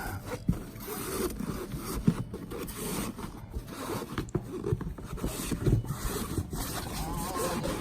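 Hands working a toy's packaging open: irregular scraping and rustling with small clicks and knocks of the parts inside being handled.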